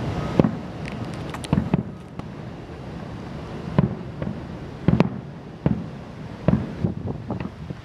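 Distant aerial fireworks bursting: about eight sharp bangs at uneven intervals, some coming in quick pairs, over a steady background rush.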